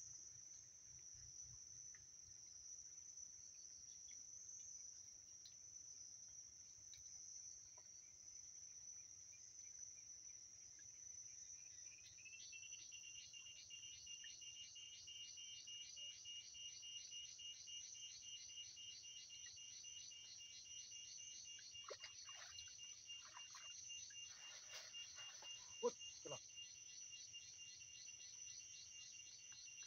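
Faint insect chorus: one high, even trill throughout, joined about twelve seconds in by a second, lower trill with rapid regular pulses. A few soft knocks near the end.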